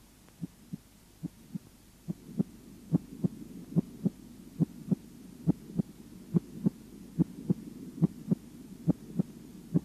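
Recorded human heart sounds as heard through a stethoscope: the first and second heart tones, a steady lub-dub in even pairs at about 75 beats a minute, over a low hiss that comes up about two seconds in.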